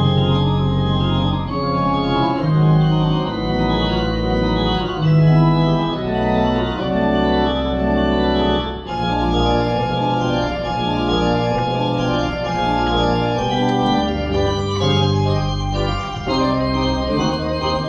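Pipe organ playing: sustained chords and a moving upper line over held low pedal notes.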